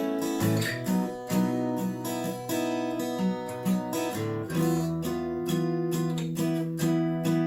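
Washburn WD11SCE acoustic-electric dreadnought guitar being played, chords strummed and picked with a fresh attack about every half second.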